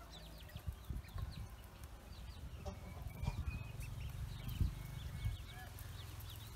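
Pekin ducklings peeping: many short, high calls that fall in pitch, over a low rumble.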